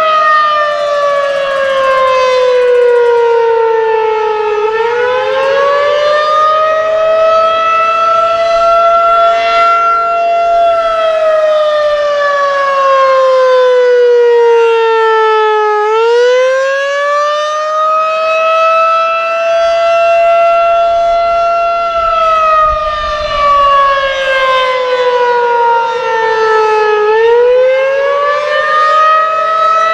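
Federal Signal 2001-SRN outdoor warning siren sounding the attack signal: a loud wail that rises over a couple of seconds, holds, then slowly falls, repeating about every eleven seconds, two and a half cycles here.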